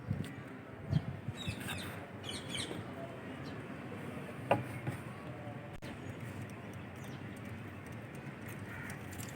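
Small birds chirping in short high bursts, twice in the first few seconds, over steady background noise, with a knock and a sharp click.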